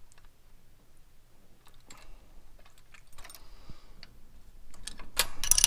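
Hand wrenches clicking and clinking against a nut on the kickdown-cable linkage of an Edelbrock AVS2 carburetor as the nut is tightened. Scattered light metal clicks are followed about five seconds in by a quick cluster of louder clicks.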